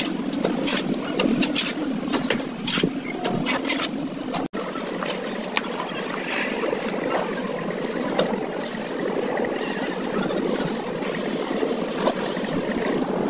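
A steady engine-like drone, with sharp scrapes and clicks of a steel trowel on sand-cement mortar and a metal mortar pan during the first four seconds or so, then fewer.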